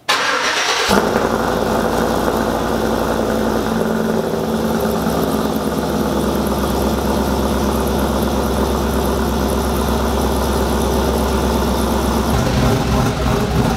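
Cammed Chevrolet Silverado engine cranking and catching right away, then settling into a steady, pulsing idle. It is running on a newly installed Walbro 450 fuel pump, the start showing the pump is delivering fuel.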